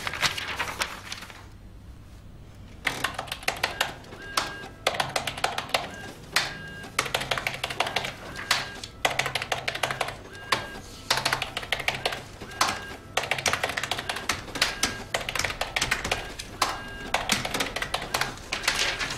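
Fast typing on computer keyboards: dense runs of key clicks in bursts broken by short pauses, with short high electronic beeps now and then.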